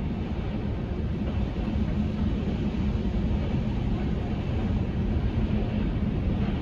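Steady low mechanical rumble with a faint even hum, heard from inside a car at the entrance of an automatic tunnel car wash.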